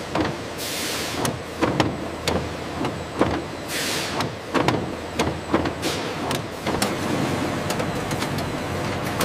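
Factory machinery running: a steady noise with irregular sharp clacks, and two short bursts of hiss about half a second and nearly four seconds in.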